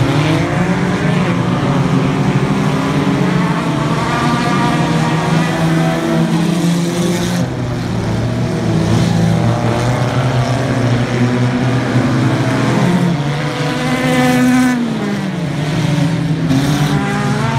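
Several sport compact race cars running together, their engines overlapping and rising and falling in pitch as the drivers get on and off the throttle through the turns.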